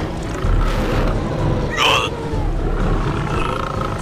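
Monster roar sound effect for a giant mutant spider, low and growling throughout, with a sharper shriek about two seconds in.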